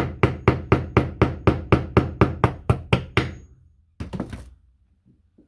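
Steady light tapping, about four taps a second, as a replacement bearing for a Makita DGA463 angle grinder is driven gently into place; the taps die away a little past three seconds, followed by a brief clatter about a second later.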